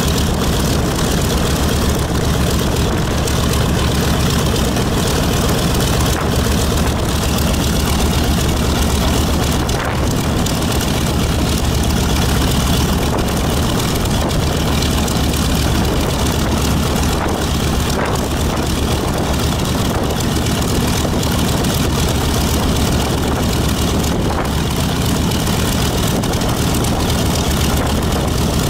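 B-25 Mitchell bomber's Wright R-2600 twin-row radial engine idling steadily on the ground during warm-up, its propeller turning, a dense low sound of rapid firing pulses.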